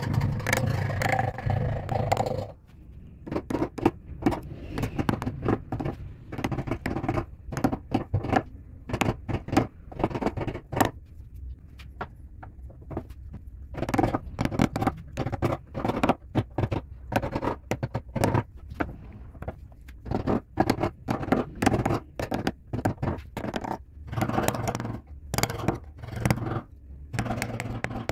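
Hand carving gouges cutting and scraping into a turned wooden lamp base, as a series of short, irregular strokes. The scraping is denser and louder for the first couple of seconds.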